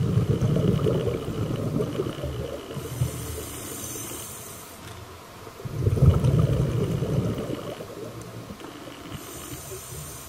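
Scuba diver breathing through a regulator underwater. Two long exhalations of bubbles rumble, one at the start and one about six seconds in, and each is followed by a hissing inhale.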